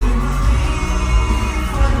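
Loud live pop music played through a concert sound system during a sound check, with heavy bass.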